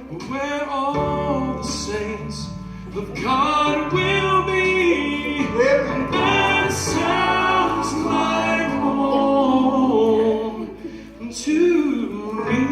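Gospel song: a singing voice holding long, gliding notes over steady instrumental accompaniment.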